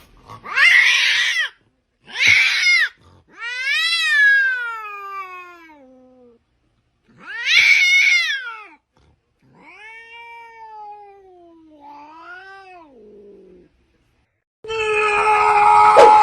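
A cat meowing and yowling in about six separate calls. Some calls are long and drawn out with a falling pitch, and the later ones are quieter. Near the end, a loud, steady sound with a held pitch starts abruptly.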